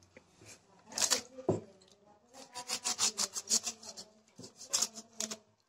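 Plastic milk pouch crinkling and rubbing in the hand as it is squeezed over a steel mixer jar. A quick run of scraping rustles comes about halfway through, with a few sharp crackles on either side.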